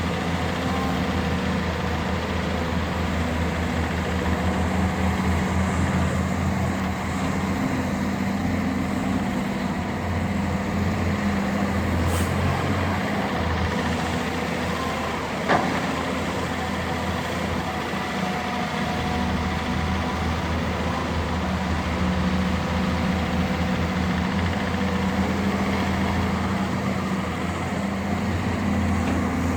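Heavy diesel machinery, excavators and dump trucks, running steadily at a dig site, with one sharp knock about halfway through.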